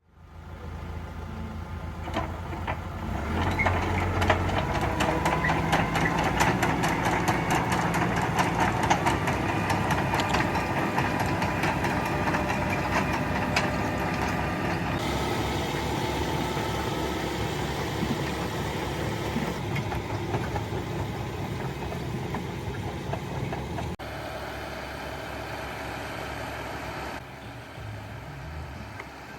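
Tractor engine running as it pulls a working potato digger, with the digger's rattling clatter, busiest over the first half; the sound changes abruptly a few times.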